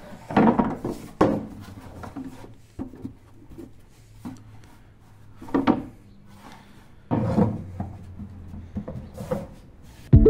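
A large plastic basin being handled and shifted on a tiled floor: a few hollow knocks and scrapes of plastic against tile, with quieter rubbing and handling noise between them.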